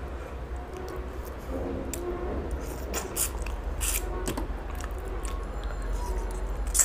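Wet chewing, lip-smacking and squishing as rice and fish curry are mixed and eaten by hand, with scattered short clicks and one sharp smack near the end, over a steady low hum.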